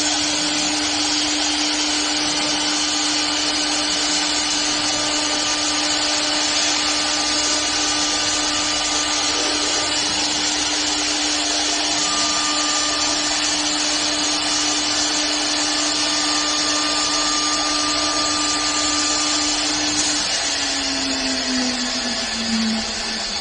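Multihead CNC wood lathe running and machining wood: a steady rushing noise over a constant motor tone. About twenty seconds in, the tone slides down in pitch as a motor slows.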